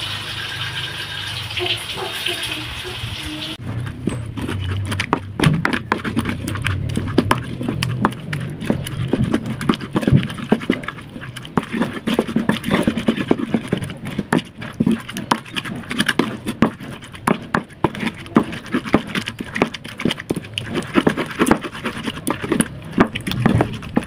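Pestle pounding and grinding chili sambal in a cobek mortar: quick, irregular knocks and scrapes that start about three and a half seconds in, after a steady hiss.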